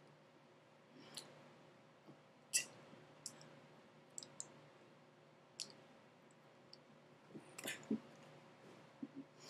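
Faint, irregular clicks and light taps, about a dozen, over a quiet room hum; the loudest come about two and a half seconds in and again near eight seconds.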